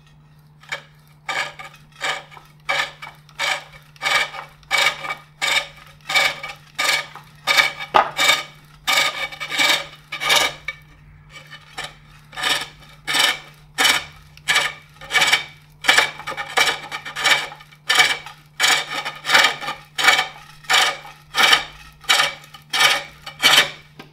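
A hook tool cutting into a wooden bowl turning on a foot-powered pole lathe, hollowing the inside of the bowl: a rasping scrape on each downstroke of the treadle. After a few uneven strokes at the start, the scrapes come steadily, about two a second.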